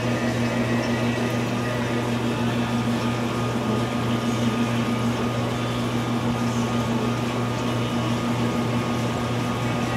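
Aquarium system's water pump running: a steady low hum with an even hiss of moving water over it.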